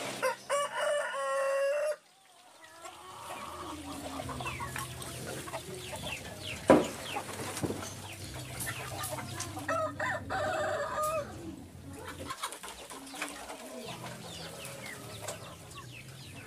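A rooster crowing, with chickens clucking and a second crow about ten seconds in, over a low steady hum.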